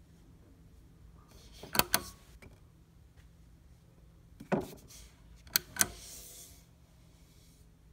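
A hand handling a SOTA Sapphire turntable near its motor pulley: two pairs of sharp clicks a few seconds apart, with a duller knock between them and a short hiss after the second pair.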